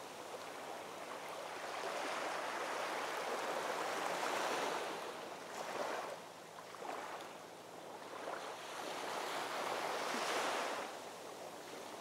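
Sea water rushing and washing along the hull of a sailboat under sail, swelling louder twice as waves pass and easing in between.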